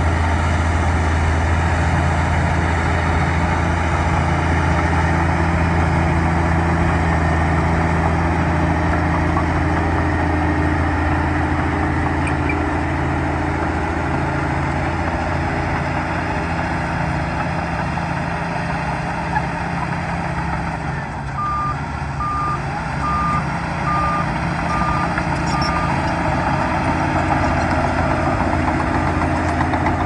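Heavy bulldozer's diesel engine running with a steady low drone. About two-thirds of the way in, a reversing alarm beeps six times, evenly spaced.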